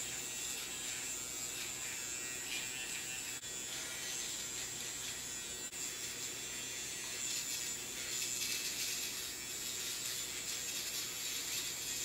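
Finishing Touch Flawless battery-powered facial hair remover running with a slight, steady buzz as it is pressed and moved over the cheek and upper lip.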